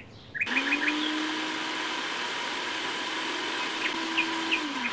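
Electric food processor motor running, chopping fresh mint, coriander and onion. It starts about half a second in with a quick rise in pitch, runs steadily, and winds down near the end.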